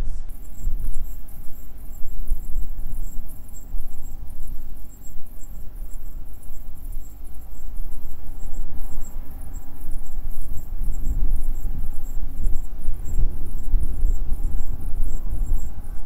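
Jeep's engine and tyres in a low, uneven rumble under load as it tows a stuck car through soft sand on a recovery strap. Over it runs a steady, fast high-pitched chirping, several pulses a second.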